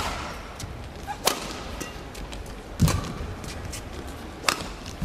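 Badminton rally: rackets strike the shuttlecock four times in sharp cracks, about a second and a half apart, as the two players trade shots.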